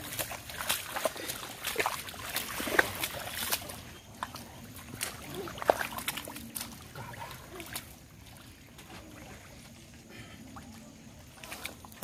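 Wet mud squelching and splashing as hands and bare feet work through shallow, watery mud: a run of quick wet slaps and sucks that thins out and gets quieter after about eight seconds.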